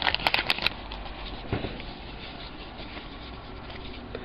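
Baseball cards and their pack being handled: a quick flurry of sharp crinkles and clicks in the first second, one more about a second later, then faint rustling.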